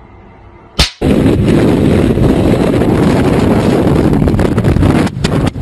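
A sharp bang just under a second in, then a sudden, very loud, continuous rush of distorted noise, heaviest in the low end, with brief dropouts near the end.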